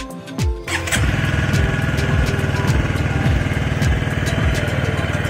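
TVS motorcycle's single-cylinder engine cold-started on the electric starter: it catches about a second in and settles into a steady idle.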